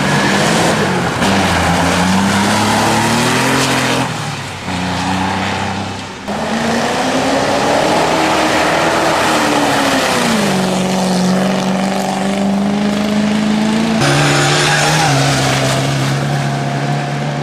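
Historic rally cars, the first a Porsche 911 with its flat-six, driven hard past on forest stages, engines revving up and falling away through the gears over tyre and gravel noise. The sound changes abruptly a few times as one car gives way to the next.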